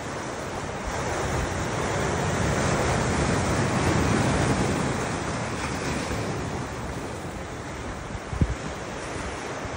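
Ocean surf washing on the shore, swelling to its loudest a few seconds in and then ebbing, with wind buffeting the microphone. A single sharp knock near the end.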